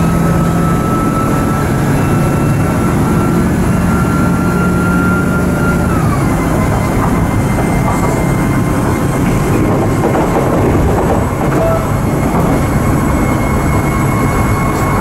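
Regional train running, heard from inside the passenger car: a steady rumble of the running gear with a drive whine that drops in pitch about six seconds in.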